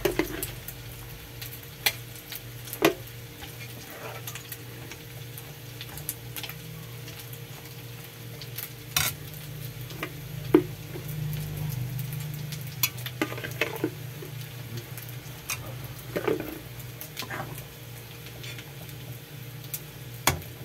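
Green salsa with chicken patties bubbling in a pan over a steady low hum. A metal spoon stirs the sauce, knocking and scraping against the pan every second or so.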